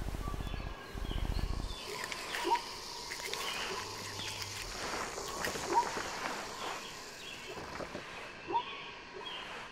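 Jungle bird ambience: birds calling with short chirps and quick upward calls scattered throughout, over a soft hiss. A low rhythmic rumble plays under it and stops about two seconds in.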